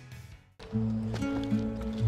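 Background music: one piece fades out to a moment of near silence about half a second in, then another piece begins with held bass notes.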